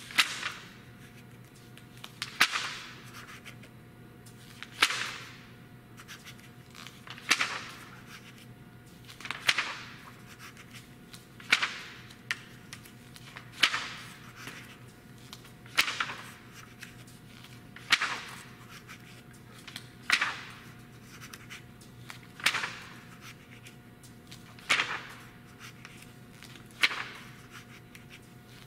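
Glossy magazine pages being turned by hand one at a time, each turn a quick swish ending in a papery snap, about every two seconds, thirteen turns in all. A faint steady hum runs underneath.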